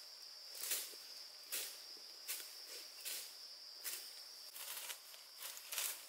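Footsteps crunching through dry vegetation at a walking pace, a little under one step a second, over a steady high-pitched insect drone that drops out about four and a half seconds in and comes back near the end.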